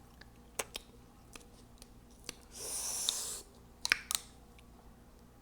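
Close-miked eating mouth sounds: a couple of wet lip smacks, a breathy hiss of about a second in the middle, then two more smacks.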